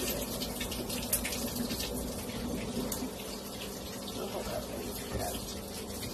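Steady rushing hiss, water-like, with many small scattered clicks and a sharper one about a second in.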